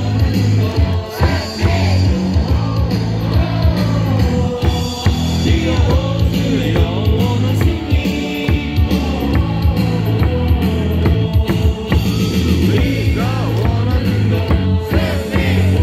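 Loud rock-style cheer song played over a baseball stadium's sound system, with a steady drum beat and singing, the music for the cheerleaders' dance routine.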